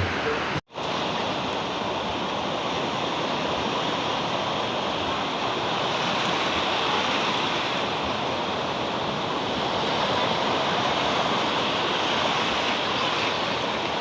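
Steady wash of sea surf breaking on a beach, with wind buffeting the microphone. The sound cuts out for an instant just under a second in.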